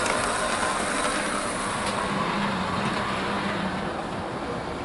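Model Class 37 locomotive's electric motor whirring steadily as it runs round a model railway layout, with its wheels rolling on the rails while it pulls a heavy track cleaning wagon.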